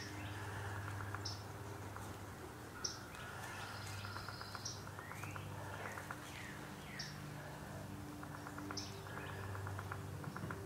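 Wild birds singing and calling: repeated rising chirps, fast trills and short high notes, over a steady low hum. One brief knock about three seconds in.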